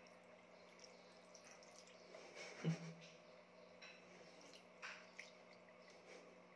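Faint trickle of a thin stream from a bathroom tap into a ceramic sink, with scattered drips and small splashes as a cat paws at the water. One brief louder thump comes about two and a half seconds in.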